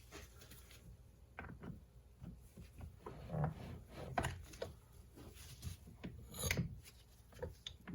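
Scattered light clicks and knocks as a 2002 Honda CR250 two-stroke is turned over slowly by its kickstart lever, with the cylinder off, to bring the piston up toward the top.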